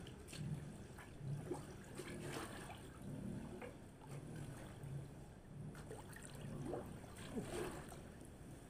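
Faint sloshing and trickling of harbour water at the quay's edge, with a few light knocks.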